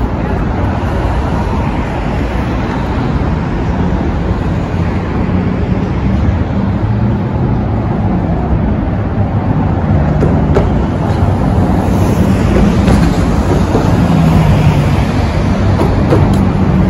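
Steady city street traffic noise: passing vehicles' engines and tyres, with a low engine hum that grows louder over the last few seconds.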